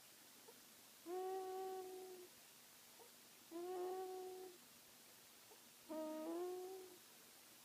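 A baby snoring with an owl-like hooting tone: three steady-pitched hoots of about a second each, roughly two and a half seconds apart.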